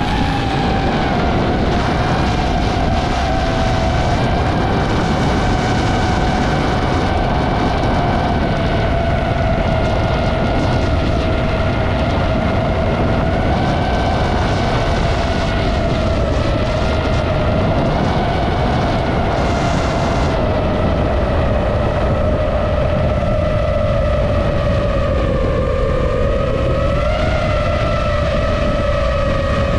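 DJI FPV drone's motors and propellers whining steadily, the pitch drifting gently with throttle, with wind rushing over the drone.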